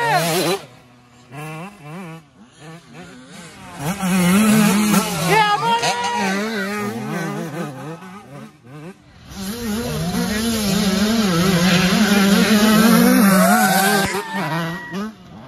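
Dirt bike engines revving up and down as riders go along a muddy track, the engine note rising and falling with the throttle. It drops quieter for a few seconds after the first bike passes and is loudest near the end, as two bikes go by close.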